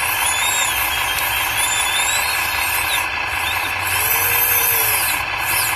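Radio-controlled model truck running: a steady mechanical whirr with squealing tones that rise and fall, the clearest about four seconds in.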